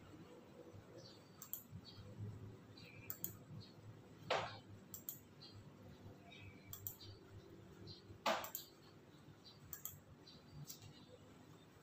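Quiet eating sounds: scattered soft clicks and mouth smacks, with two sharper clicks about four and eight seconds in.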